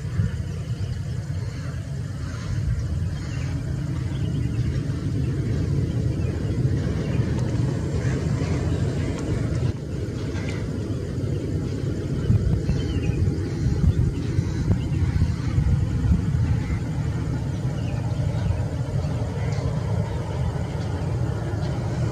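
Boeing 737-800's CFM56 jet engines heard from the ground on final approach: a steady low rumble that grows slightly louder as the airliner nears.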